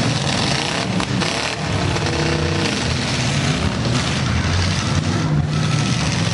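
Several six- and eight-cylinder demolition derby cars' engines running and revving together through open headers, loud, with a couple of sharp bangs about a second in.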